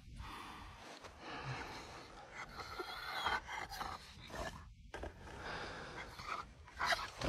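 Heavy, irregular panting breaths, with soft rustling.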